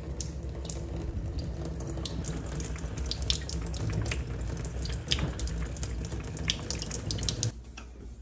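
Tap water running into a sink in a steady stream with irregular splashes, left running for a cat to drink from. It cuts off sharply near the end.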